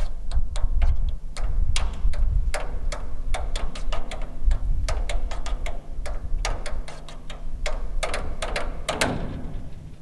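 Tap shoes striking the top of a water truck's metal tank in fast, irregular runs of sharp taps, some ringing briefly, with short pauses between runs. A steady low rumble runs underneath.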